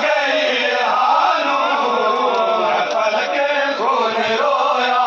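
Many men's voices chanting a noha, a Shia lament for Muharram, together in a steady, unbroken group chant.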